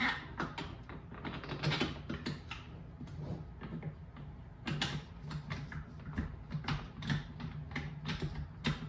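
Irregular light clicks and knocks of a cordless hammer drill and its side handle being handled, over a steady low hum.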